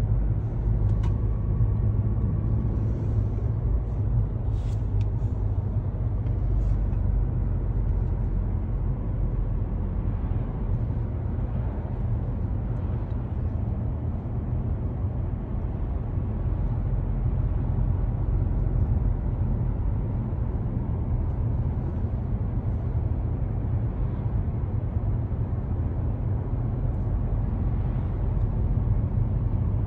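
Car driving at road speed, heard inside the cabin: a steady low rumble of tyres and engine.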